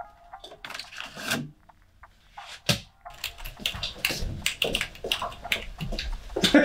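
Scattered clicks and knocks from a cash register drawer being handled. From about three seconds in, a quick run of rattles and knocks from footsteps and the tactical gear and rifle of a man walking in.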